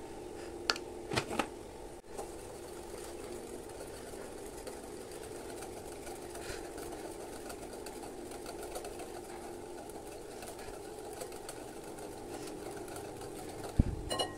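Wire whisk stirring curd in a glass bowl, over a steady mechanical hum. A few sharp clicks come about a second in, and a louder knock with clinks near the end.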